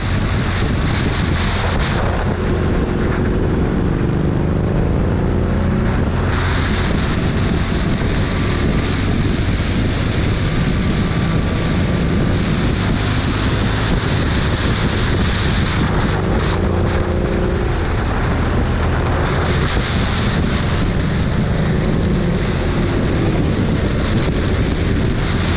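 A vehicle's engine running under way, its pitch rising and falling several times with the throttle, under heavy wind rushing over the microphone.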